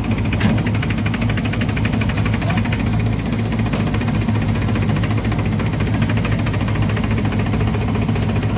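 A tractor's diesel engine running close by, steady and loud, with an even, rapid beat from its firing.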